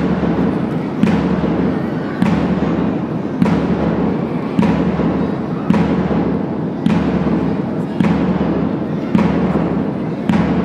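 A big drum beaten at a slow, steady marching pace, about one beat a second, each deep hit ringing on until the next. It keeps time for a procession marching in step.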